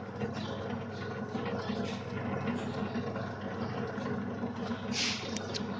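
Liquid pouch packing machine running with a steady mechanical hum, with a short hiss about five seconds in.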